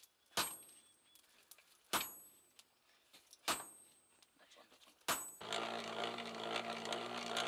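Hammer blows on iron at a small anvil, four ringing metallic clangs about a second and a half apart. About five seconds in, a hand-cranked forge blower starts with a steady whirring hum.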